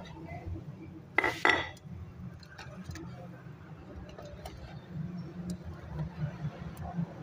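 Two sharp metallic clinks about a second in, cookware or a utensil knocking on metal, followed by a few faint ticks over a steady low rumble.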